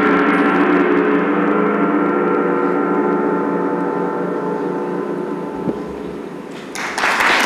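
A gong's long ringing tone, its overtones wavering, slowly fading away. Near the end, audience applause breaks out.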